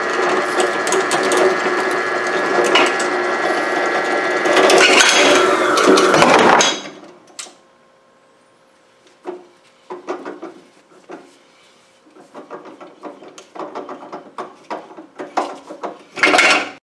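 Drill press running, its bit cutting into a locked boot-latch lock cylinder to drill the lock out. It gets louder toward the end of the cut, and the motor stops about seven seconds in. After that come scattered small metal clicks and taps as the part and chuck are handled, and a short loud burst near the end.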